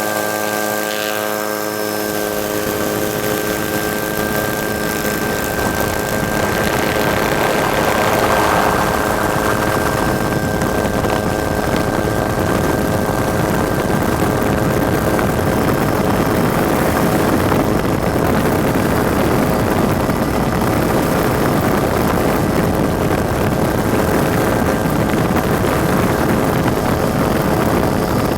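Helicopter running at a constant pitch: a cluster of steady tones over a rushing noise that grows louder about six seconds in and then holds.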